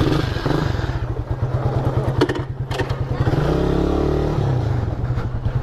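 Motorcycle engine that comes in suddenly and runs with a rapid, even pulsing. About three and a half seconds in, the revs rise and fall once.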